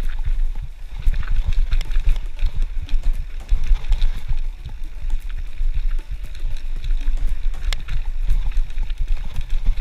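Wind buffeting the microphone of a mountain bike's action camera, with a steady stream of small rattles and knocks from a Specialized Stumpjumper FSR full-suspension bike rolling fast over a rough dirt trail.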